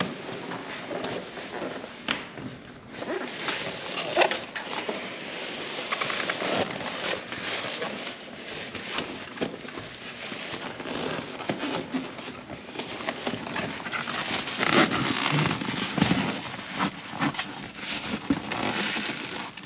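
A car floor mat being slid and pressed into place in the footwell: irregular scraping and rustling with many short crackles and light knocks.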